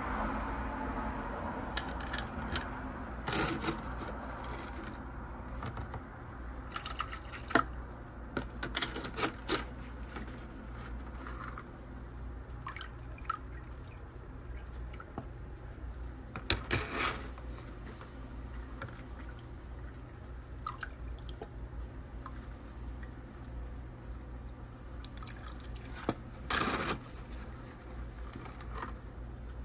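Water splashing and dripping in a plastic tub as a turkey baster is squeezed and drawn through duckweed-covered culture water, in scattered bursts over a low steady hum.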